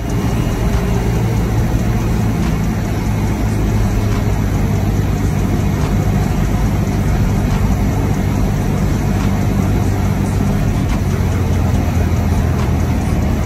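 Cessna 172's piston engine and propeller droning steadily, a loud, unchanging low drone with rushing noise as heard inside the cabin.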